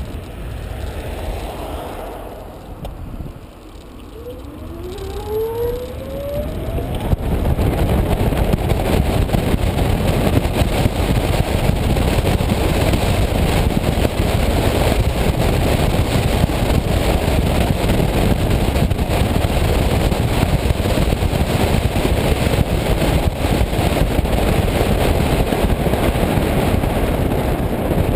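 Lithium-converted City-EL electric microcar: its driving noise dies down as it slows, then a rising electric-motor whine as it pulls away about five seconds in. After that comes steady wind and tyre noise at speed on a wet road, heard on a camera mounted outside the car.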